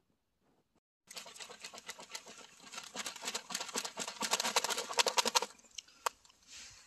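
Footsteps crunching in cold, dry snow: a dense, crackling run of crunches for about four seconds, then a few single clicks.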